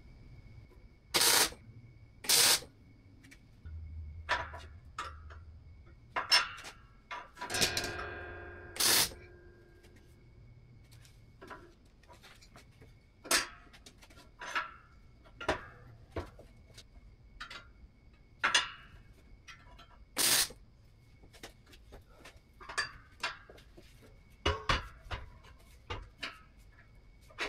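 Steel parts being handled, set down and knocked into place on a steel welding table: a long series of sharp metal clanks and knocks, several of them loud, with one piece ringing briefly about eight seconds in.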